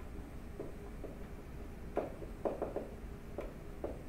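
Stylus tapping and scratching on a writing tablet during handwriting: about eight short, soft taps scattered irregularly over a low steady hum.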